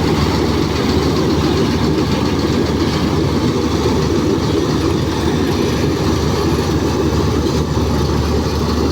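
Combine harvester engine running steadily under load, a deep even drone with a dense rumble.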